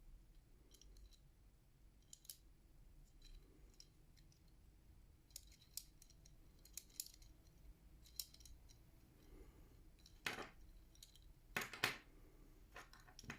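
Small plastic clicks and taps from handling a Kinder Surprise toy and its parts: light scattered clicks at first, then a few louder, sharper knocks near the end.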